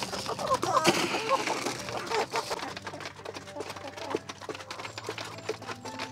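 Hens clucking, then many quick sharp clicks of beaks pecking pellet feed from a plastic pipe trough. A few light chiming tones come in over the clicks near the end.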